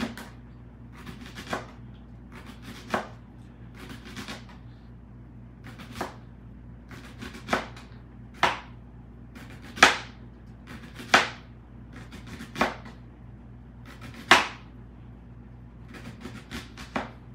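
Small knife slicing a red onion paper-thin on a cutting board: a crisp cut and tap of the blade on the board with each slice, about a dozen slices at a slow, uneven pace of roughly one every second or so.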